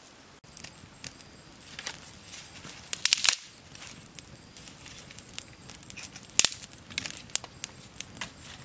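Dry sticks cracking and snapping as firewood is handled and pushed onto a small open fire, with a cluster of sharp cracks about three seconds in and a single loud snap a little past the middle.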